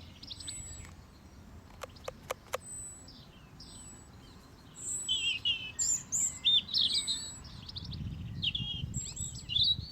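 Songbird singing a run of quick chirping, whistled phrases, loudest in the second half. Three sharp clicks come about two seconds in.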